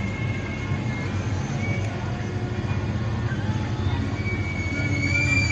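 Bus engine running, heard from inside the cabin as a steady low rumble, with a thin high whine that comes back and grows louder near the end.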